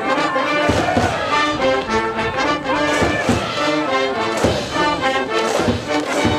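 High school brass band playing a cheering tune for a baseball game, brass in unison over regular percussive beats.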